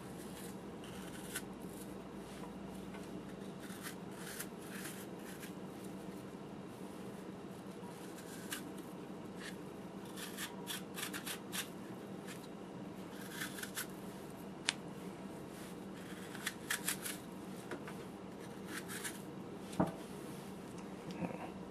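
Small knife carving and scraping a peeled apple: scattered short, crisp cuts and scrapes, over a steady low hum.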